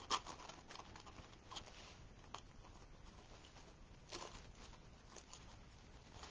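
Faint rustling and crinkling of ribbon and deco mesh being handled on a wreath, with a few soft ticks, the sharpest just at the start.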